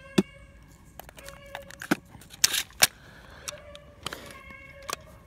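A dog giving long, steady-pitched whining cries, several times over, with sharp clicks and knocks of handling noise on top, the loudest about two and a half seconds in.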